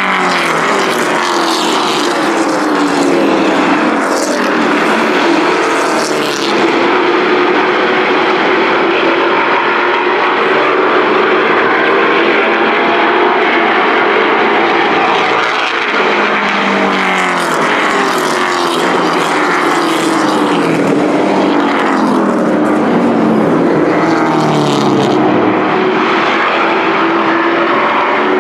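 A pack of Thunder Truck race trucks running hard around a paved oval: several engines at once, loud throughout, their pitch rising and falling as the trucks come past and draw away.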